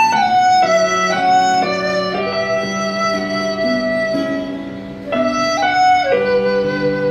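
Ebony dizi flute playing a slow melody in long held notes, with a bright, reedy tone; one long note fades out and a new phrase starts about five seconds in. A lower plucked-string accompaniment sounds underneath.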